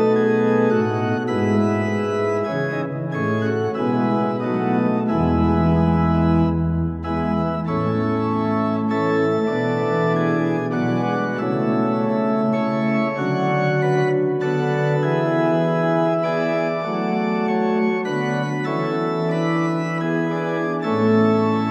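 Organ playing a slow piece in sustained, held chords, with a deep pedal note sounding for a few seconds near the middle.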